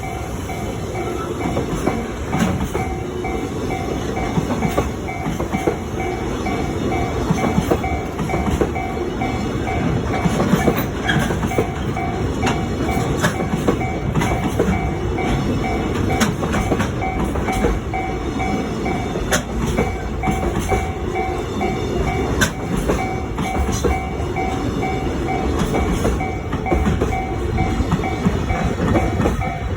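Container freight train rolling past, its wagon wheels clattering and knocking over rail joints in a steady rumble. A level-crossing warning bell rings in a steady repeating pattern throughout.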